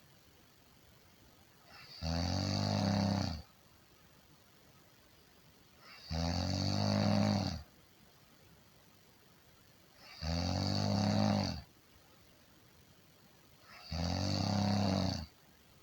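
A person snoring steadily: four long, low-pitched snores about four seconds apart, each lasting about a second and a half, with quiet between them.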